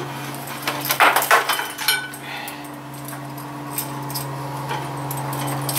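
Computer cables and their plugs rattling and clicking as they are pulled and untangled behind a monitor, busiest about a second in, over a steady low hum.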